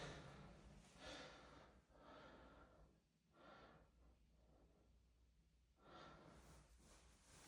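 Near silence, with a few faint, soft breath-like swells of noise.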